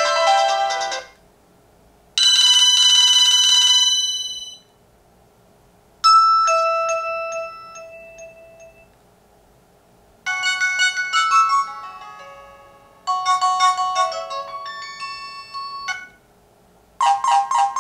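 Nokia 3310 (2017) ringtones played one after another, with short silent gaps between them. There is a held electronic chord, a single decaying ding, two short melodic phrases, and near the end the start of a quickly repeating tune.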